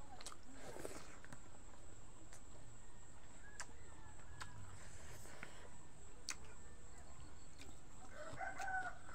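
A rooster crowing in the background, faintly a few seconds in and more clearly near the end, over a low steady hum, with scattered small mouth clicks from eating.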